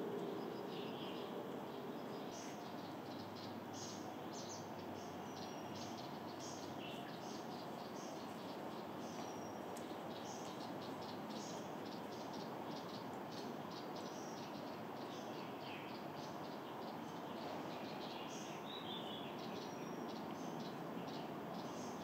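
Outdoor ambience: a steady low hum with many short, high chirps scattered throughout.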